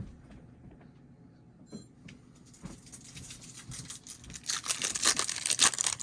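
A foil trading-card pack wrapper being torn open and crinkled. A few light ticks come first, then dense crackling for the last second and a half or so.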